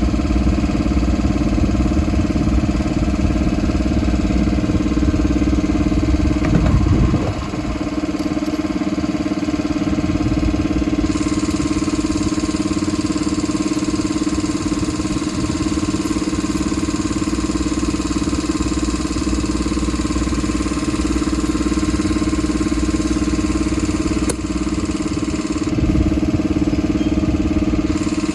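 Engine idling steadily, its tone shifting slightly about seven seconds in.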